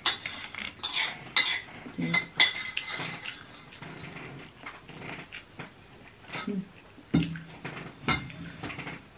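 Metal cutlery clinking and scraping against a ceramic plate during eating, a series of sharp clicks, most of them in the first couple of seconds and again near the end.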